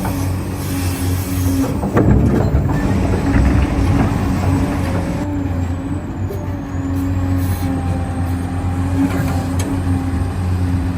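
Steady, low, diesel-like engine drone from 1:14-scale RC construction machines, with a brief clatter about two seconds in.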